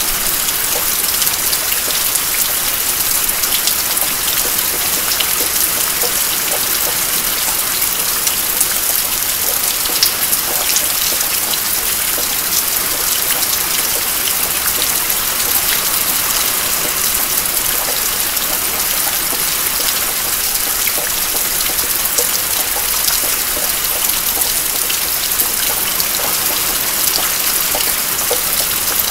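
Steady rain falling: an even hiss with many small drop ticks, unchanging throughout.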